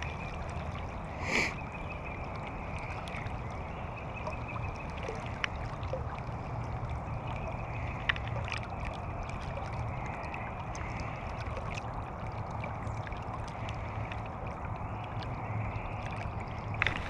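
River current washing and lapping around a wading angler, a steady rush of flowing water, with one brief louder swish about a second and a half in and a few faint ticks.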